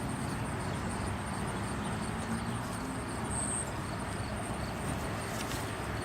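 Steady outdoor background noise: an even low rumble with a hiss above it and a faint thin high tone, with no distinct event.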